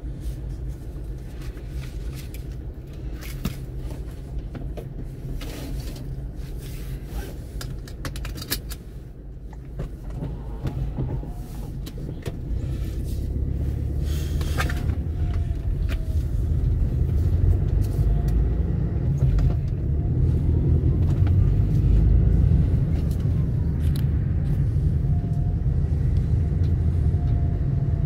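Road traffic passing with a steady low rumble, growing louder about halfway through.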